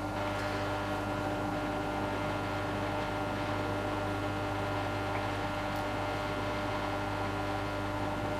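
Cookology mini countertop dishwasher running mid-wash-cycle: a steady motor hum with a hiss over it, unchanging throughout.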